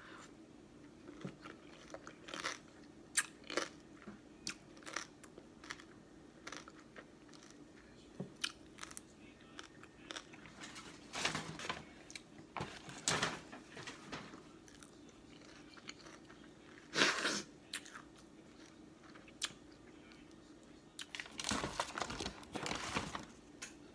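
Close-up eating sounds from a seafood boil of crab, crawfish and shrimp: irregular chewing, biting and crunching, with scattered short clicks and a few longer bursts of crunching in the middle and near the end.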